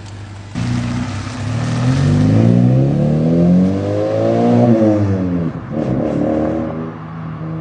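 Mazda3 engine breathing through a freshly fitted Borla aftermarket exhaust: idling, then revving up about half a second in with the pitch climbing for about four seconds before falling back, a second short rev near six seconds, then settling to a steady low note.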